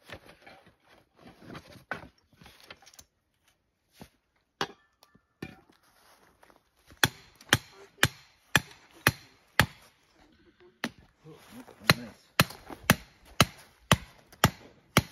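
Hammer driving a survey pin into the ground: sharp blows about two a second, six in a run starting about seven seconds in, then seven more after a short pause. Before the blows, scuffing and rustling in leaf litter.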